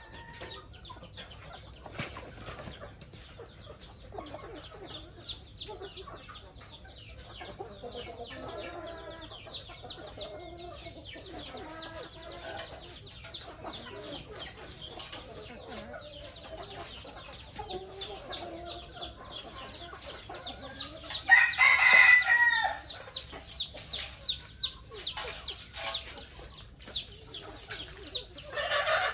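A flock of chickens clucking and calling continuously, with a rooster crowing loudly once about three-quarters of the way through.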